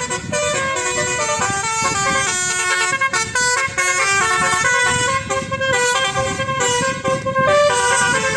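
Basuri 'telolet' musical horn on a bus playing a melody: a quick run of loud horn notes stepping up and down, with short breaks between phrases.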